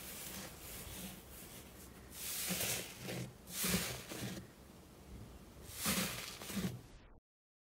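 Hands pressing and squishing a thick slime in a tray, with three louder squishing presses among softer ones. The sound cuts out to dead silence near the end.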